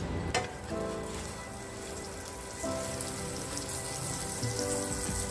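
Butter sizzling in a frying pan as a sandwich toasts, with one short knock about half a second in. Soft background music plays throughout.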